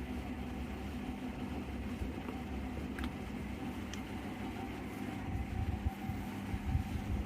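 Steady mechanical hum of room machinery, with two faint clicks about three and four seconds in and a few dull low thumps near the end.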